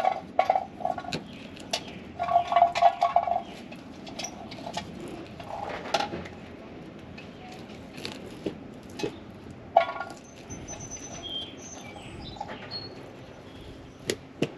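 Knife scraping and tapping against a cardboard box as the skin is cut off a raw fish fillet, with a few sharp clicks. Small birds chirp briefly in the background in the second half.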